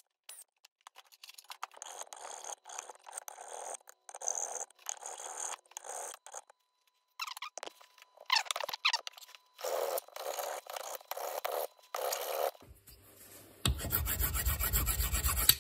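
Hand file rasping in back-and-forth strokes on the metal of a VW Golf Mk3 front ABS sensor clamped in a bench vise, taking it down to set a 0.5 mm air gap to the ABS ring. The strokes come in runs with a short pause about halfway, and there is a louder, denser stretch of scraping near the end.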